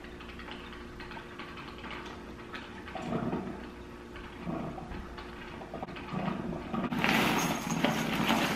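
Dry cereal poured from a cardboard box into a ceramic bowl: a dense, loud rattling patter through the last second and a half or so, after a few quieter short handling sounds.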